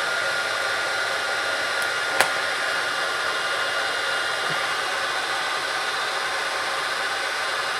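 Hot-air heat gun blowing steadily with a constant whine, warming a phone's plastic back cover gently to soften the adhesive so the back can come off. A single sharp click about two seconds in.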